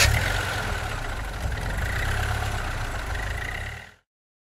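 Car engine catching and running at a steady idle, then cutting off suddenly about four seconds in.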